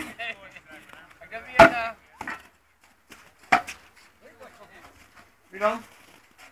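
Sharp bangs from metal milk churns during carbide shooting: one at the start, the loudest about a second and a half in and another about three and a half seconds in, with men's voices between.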